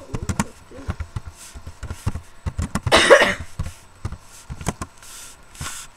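Scattered soft knocks and rustling close to a webcam microphone, with one short, louder breathy burst about three seconds in, like a cough.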